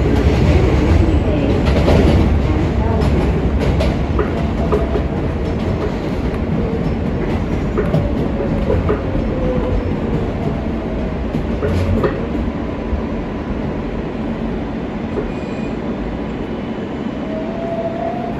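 R143 subway train running on the rails: steady rumble with clicks of the wheels over rail joints, and a faint whine that falls in pitch partway through as the train eases off.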